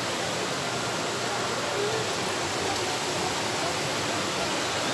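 Small waterfall pouring over a low rock ledge into a rocky stream, giving a steady rushing hiss.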